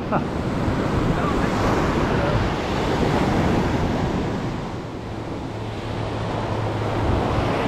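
Ocean surf breaking and washing up the beach, swelling and easing, with wind on the microphone.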